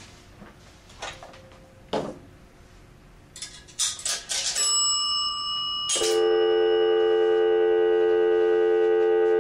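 Gray Mfg 150G three-slot payphone: a few clicks, then a clatter of coins going into the slots and the coin-signal bell ringing once and dying away. About six seconds in there is a click and a steady telephone dial tone starts.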